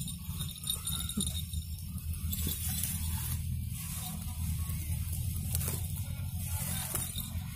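Leaves and grass rustling and crackling as hands push through dense undergrowth, with many short scratchy rustles over a steady low rumble.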